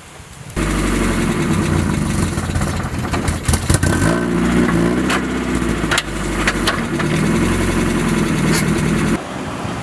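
Mazda NA Miata running and being driven, engine note rising and falling, with irregular sharp knocks through it: the sound of its open differential broken after a rear-end collision. It starts suddenly about half a second in and cuts off shortly before the end.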